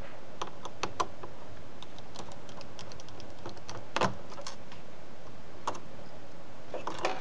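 Light metallic clicks and ticks of a precision screwdriver working the small screws of a laptop screen hinge, scattered and irregular, with the loudest click about four seconds in and a quick cluster near the end.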